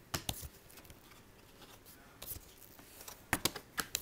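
Books and paper being handled: a few sharp clicks and light rustles, bunched near the start and again near the end.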